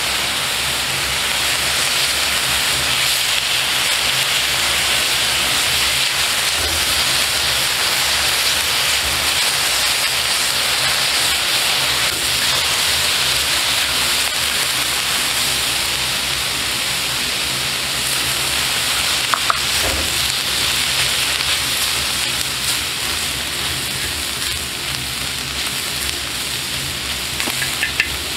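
Sliced meat sizzling steadily on a large black griddle pan as it is stirred with chopsticks. A few short clicks, likely the chopsticks against the pan, come about two-thirds through and again near the end.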